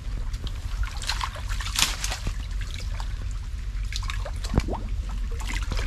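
Shallow ditch water sloshing and trickling, with several separate splashes as hands or feet move through it, over a steady low rumble.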